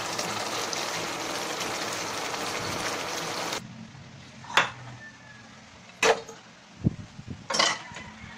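A steady sizzling hiss from a pan of chicken feet braising in black bean sauce, which cuts off after about three and a half seconds. Then come a few short sharp knocks about a second and a half apart, with one dull thud among them.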